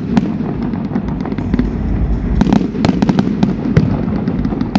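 Fireworks going off: a string of sharp bangs and crackles over a steady low rumble, with a thick cluster of cracks about halfway through and more near the end.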